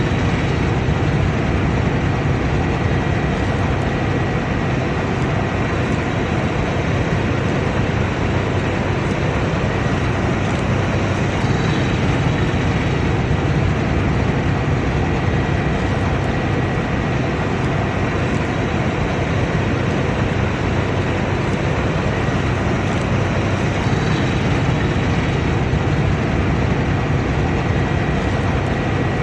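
Combine harvester running steadily: a loud, unchanging machine noise with a low hum underneath and a faint steady whine.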